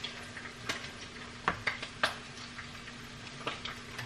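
Metal tongs and a spatula knocking and scraping against a stainless steel pan as spaghetti is tossed: a handful of scattered clicks over a low steady hum.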